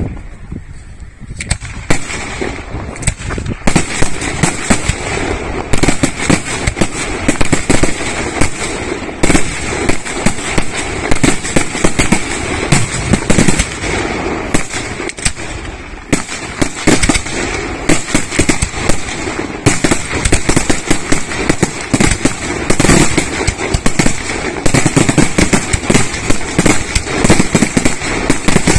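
Fireworks display: aerial firework shells bursting in a rapid, near-continuous run of bangs. The bangs start about a second and a half in, after a short quieter spell, and keep going with only brief dips about halfway through.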